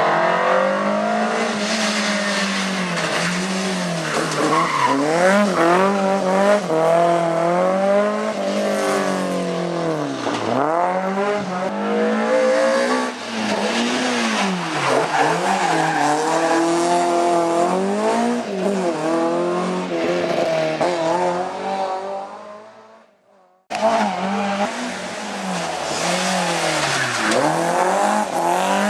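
BMW M3 rally car engine at racing speed, heard from on board. The revs climb and drop again and again through gear changes and lifts, and the tyres squeal in slides. About three-quarters through, the sound fades out and cuts straight back in on another run.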